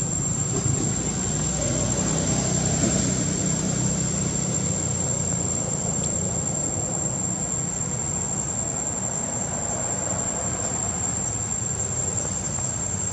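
Steady outdoor background noise: a constant high-pitched whine, with a low hum that is strongest in the first few seconds and then fades.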